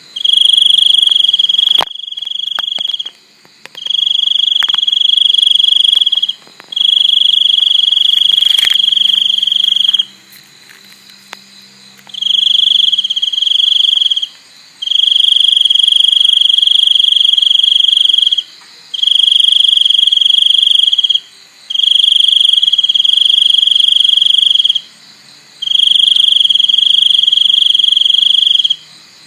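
Cricket trilling loudly and close: a steady, high-pitched trill in bursts of about one to four seconds, with short breaks between.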